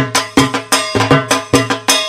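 Dhak drumming for Durga Puja: fast rhythmic strokes on the low, booming barrel drum, about six a second, with a ringing metallic clang over each beat.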